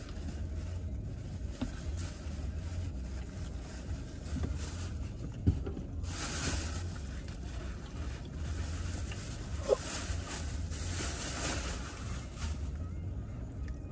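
Steady low hum of a car's cabin with the car stopped, with a few light clicks and brief stretches of hiss about six and ten seconds in.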